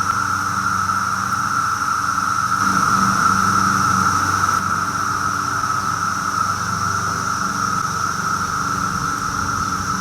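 Brood X periodical cicadas chorusing, a loud, steady, unbroken drone with one main pitch and a fainter, higher one above it. A low hum runs underneath.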